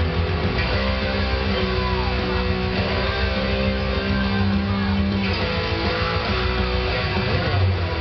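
Electric guitar playing a heavy metal song, with sustained bass notes underneath.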